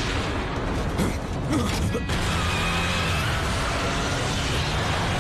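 Sports car launching with its engine running hard and a steady high squeal over it, as flames burst out behind it.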